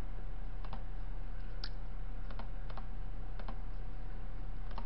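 Typing on a computer keyboard: a scatter of irregular key clicks over a steady low electrical hum.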